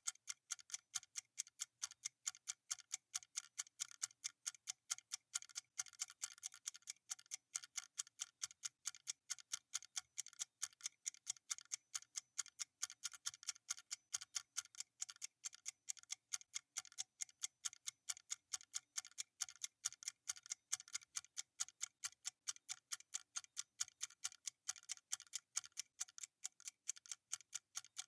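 Clock ticking sound effect for a countdown timer: a steady, even tick about three times a second.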